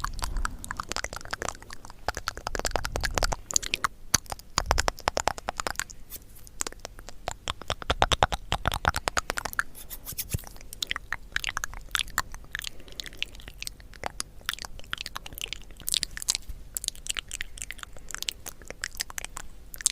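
Close-miked crunching of candy, with dense runs of fine crackling clicks that come and go in busier stretches.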